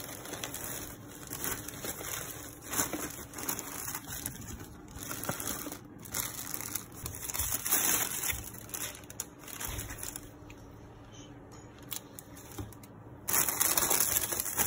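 Thin plastic carrier bags crinkling and rustling in irregular bursts as they are handled and opened to take out food and cup drinks.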